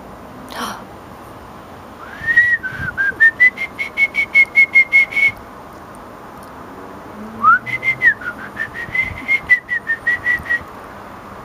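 Someone whistling two trilling phrases close by. Each phrase opens with a rising glide and breaks into a fast run of short notes, about five a second.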